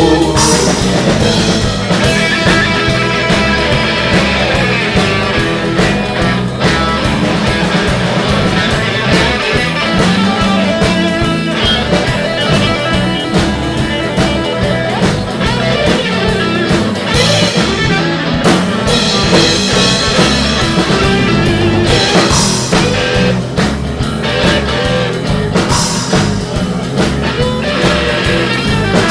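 Live blues band playing an instrumental passage, guitar to the fore over bass and drum kit.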